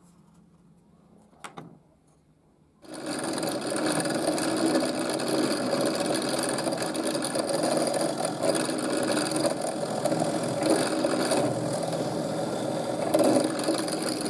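A drill press starts about three seconds in and runs steadily, its bit boring through the holes of a steel knife tang into a red hardwood handle block. A short click comes before it.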